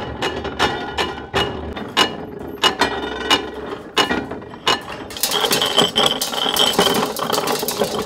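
Antique cast-iron hand-cranked farm machinery being turned by hand, its gears and ratchet clicking. At first it gives separate sharp metallic clicks that ring briefly, a couple a second. About five seconds in it changes to a fast, continuous rattle as a small hand-cranked mill is cranked.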